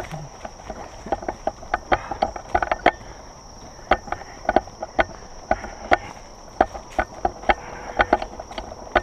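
A steady high insect drone under irregular clicks and creaks, several a second, from a heavily loaded backpack and its gear jostling as someone walks.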